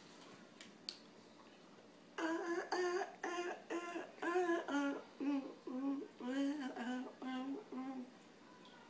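A woman singing a tune without words, about a dozen short, separate notes that step down in pitch, starting about two seconds in and stopping about a second before the end.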